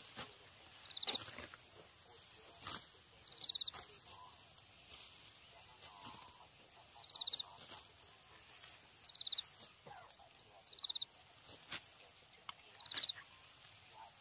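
A short, high, rapidly pulsed trill from a small animal, repeated six times at irregular gaps of about two seconds and the loudest thing heard. Between them come crisp snaps of ripe rice stalks being cut with hand sickles.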